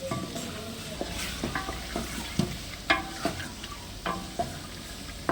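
Chicken chaap frying in a pan and being stirred: a utensil scrapes and clinks against the pan about twice a second over a steady sizzle.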